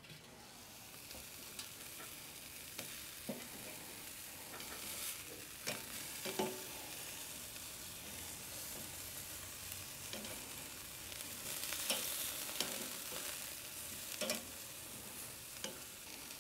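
Marinated pork neck sizzling on the grate of a charcoal kettle grill: a steady, fairly quiet hiss with scattered crackles and pops of spitting fat.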